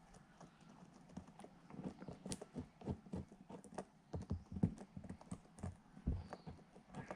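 An old saw blade used as a mixing stick, stirring and dabbing two-part Araldite epoxy on a hard surface: rapid, irregular light clicks and taps that start about a second and a half in.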